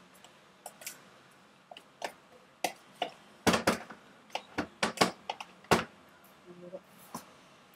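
A spoon knocking and scraping against a bowl as food is stirred. It makes a string of sharp, irregular clicks that come thickest around the middle.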